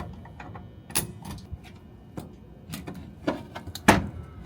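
Scattered small clicks and knocks of handling work, with a louder knock near the end.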